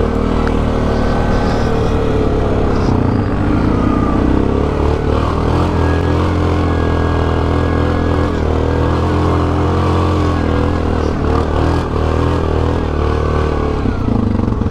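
ATV engine running at low revs, its pitch rising and falling a little with the throttle.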